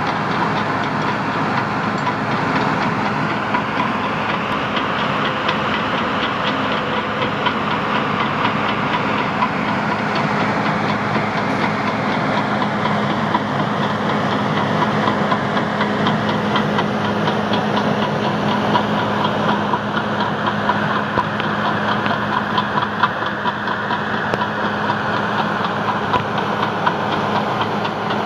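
Heavy-equipment diesel engine running steadily, with a fast, even clatter over a constant low hum.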